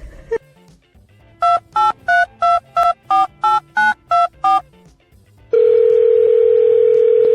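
Telephone keypad touch-tones: about ten short two-note beeps dialled at roughly three a second, then one steady tone held for about two seconds.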